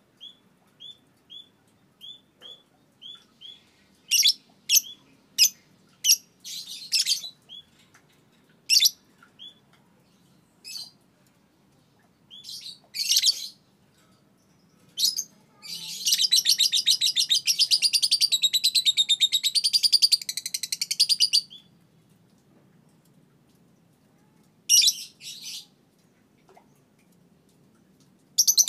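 Young Fischer's lovebird singing: a run of short chirps about two a second, then loud, sharp calls, then a long, rapid, unbroken chatter (the 'ngekek') lasting about five seconds, with a few more sharp calls near the end.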